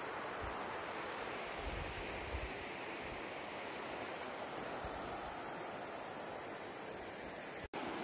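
Steady rushing of water, like a mountain stream running out of sight, with a few faint low wind bumps on the microphone. The sound cuts out for an instant near the end.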